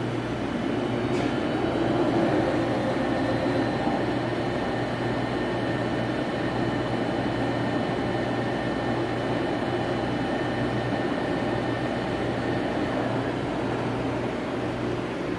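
Steady mechanical hum with a faint high whine from a Bullard Dynatrol CNC vertical boring mill running under power. A click about a second in is where the whine starts, and the whine fades near the end.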